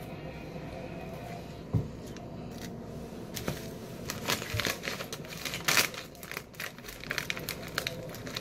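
A foil-lined Lay's Baked chip bag crinkling as it is picked up and handled: a rapid, irregular crackle that starts about three seconds in, after a few seconds of quiet chewing.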